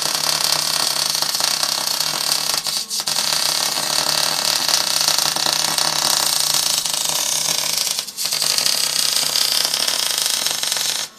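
Wire-feed (MIG) welding arc sizzling steadily as a bead is laid, breaking off briefly twice, about three and eight seconds in, then stopping abruptly at the end.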